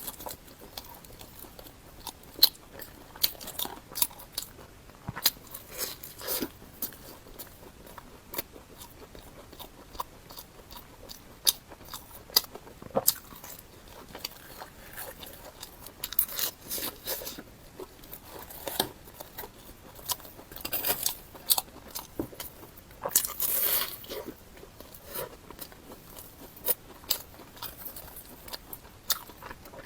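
Close-up eating sounds: crisp bites and crunchy chewing, with many sharp crackling crunches at irregular intervals.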